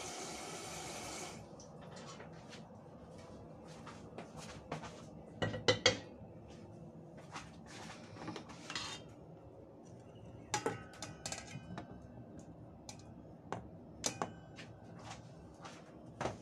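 Tap water running into a stainless steel saucepan stops about a second in. Then come clanks and knocks of the metal pot being handled and set down on a gas stove's pan support, the loudest about halfway through, a few of them with a short metallic ring.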